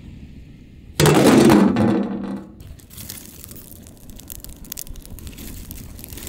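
A sudden loud thud-like burst about a second in, dying away over a second and a half, then an open wood fire crackling under a large cooking pot with many small irregular pops.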